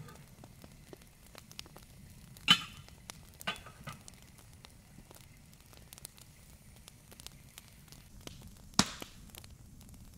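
Wood fire crackling in a small camp stove with fine, steady ticking, and three louder sharp cracks, the loudest about two and a half seconds in, another about a second later, and one near the end.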